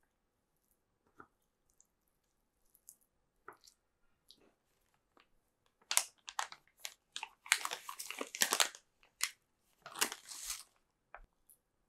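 Thin clear plastic bag crinkling and rustling as it is handled and filled with a spoon, from about six seconds in until shortly before the end. A few faint clicks and taps come before it.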